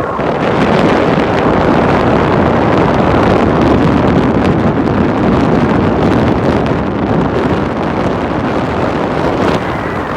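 Heavy wind buffeting the microphone of a moving car, a loud steady rushing over the road and vehicle noise.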